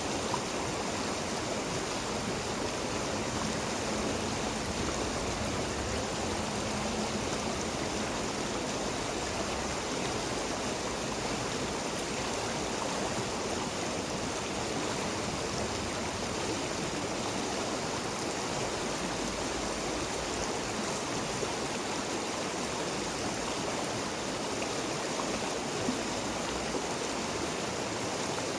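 River water flowing steadily: a continuous, even rushing.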